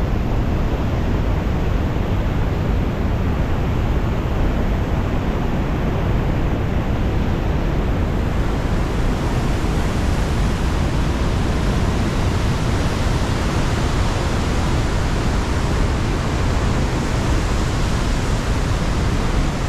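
Whitewater of a boulder-strewn mountain river rushing steadily under a footbridge, a constant roar that turns brighter and hissier about halfway through.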